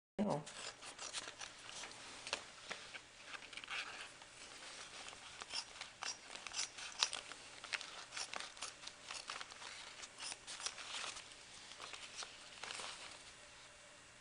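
A rapid, irregular run of small clicks and rustles from close-up handwork.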